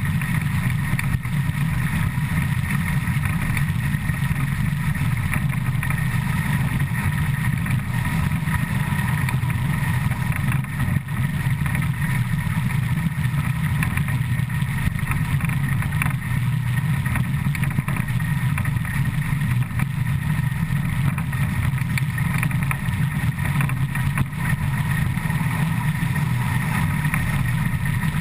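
Škoda-built ČSD class 475.1 steam locomotive running at about 100 km/h, heard from right beside its driving wheels: a loud, even rumble and rush of wheels and running gear on the track.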